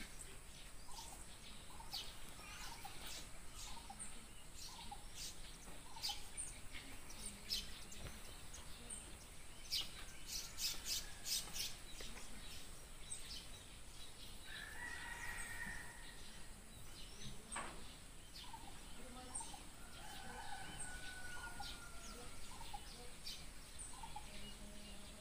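Faint outdoor ambience of birds chirping over and over, with two longer, drawn-out calls partway through. A quick run of sharp clicks comes about ten to twelve seconds in.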